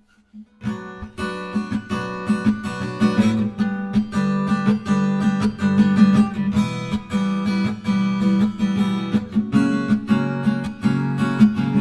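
Acoustic guitar strummed in a steady rhythm, the instrumental introduction to a song.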